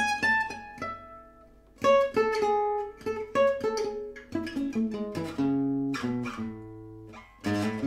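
Oval-soundhole gypsy jazz guitar picked note by note, playing short fragments of four-note arpeggios. The notes ring and die away, with a lull of about a second near the start. In the second half a run of notes steps down in pitch.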